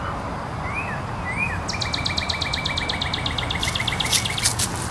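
A songbird calls: two short slurred chirps, then a fast, even run of repeated notes lasting about three seconds, over a steady low outdoor rumble. Near the end, dry fallen leaves crunch loudly under a cat's paws.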